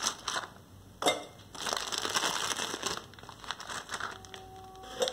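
Foil biscuit wrapper crinkling and rustling in a few bursts as a stack of digestive biscuits is pulled out of it, the loudest about a second in, then only quiet handling near the end.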